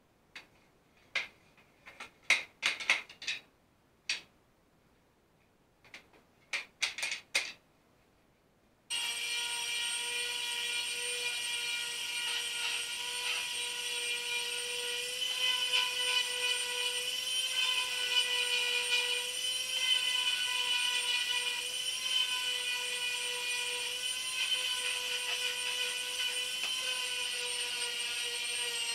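A few scattered sharp clicks and knocks, then from about nine seconds in an electric palm sander runs steadily with a high whine as it sands wooden bench slats.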